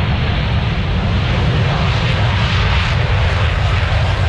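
Fixed-wing display aircraft flying past, its engine noise loud and steady with a heavy low rumble, growing brighter about halfway through.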